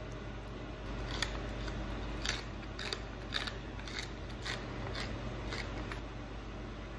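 Pepper mill grinding peppercorns: a run of short crunchy clicks, about two a second, that stops about a second before the end.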